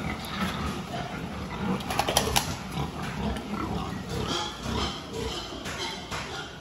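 Young pigs grunting at irregular intervals, with a short cluster of sharp clicks about two seconds in.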